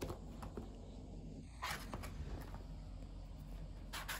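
Cardboard carton on a carpet being pawed and shifted by a cat: a few short scrapes and rustles, one about a second and a half in and two close together near the end, over a low steady hum.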